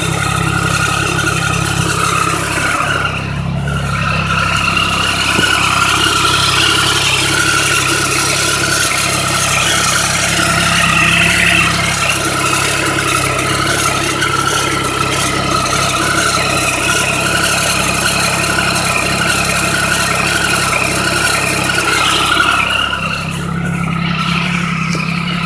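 Triumph 1050 inline-three motorcycle engine running steadily, getting louder about four seconds in and easing back near the end.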